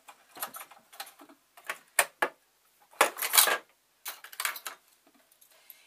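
Small metal parts of a Frister Rossmann sewing machine's bobbin and hook area clicking and rattling as they are taken apart by hand to clear a jam. There are a couple of sharp clicks about two seconds in and a louder clatter around three seconds in.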